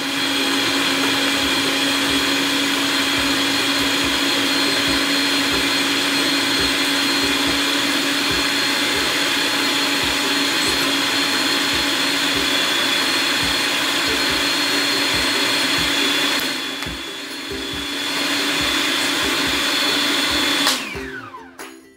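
Food processor motor running steadily as it blends horse chestnuts with water into a fine pulp. Its level dips briefly about three-quarters of the way through, then recovers. Near the end it is switched off and winds down with a falling pitch.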